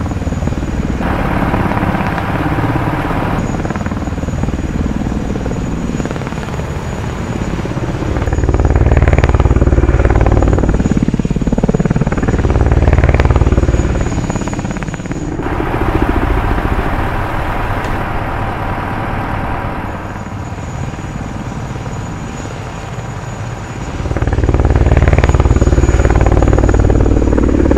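Rotorcraft-like mechanical drone and whirring with a thin high whine, swelling into a louder low rumble three times, the last near the end.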